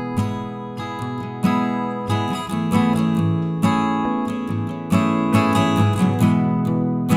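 Intro music: strummed acoustic guitar with a steady rhythm.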